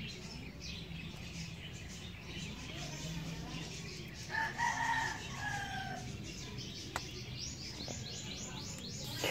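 A rooster crows once, about four and a half seconds in, a call of about a second with a falling end. Small birds chirp faintly, more of them near the end.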